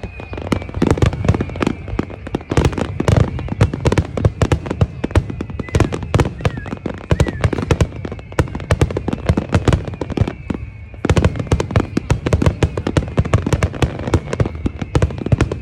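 Dense barrage of fireworks: rapid, overlapping bangs and crackles with no gaps between them, thinning briefly about ten seconds in and then picking up again.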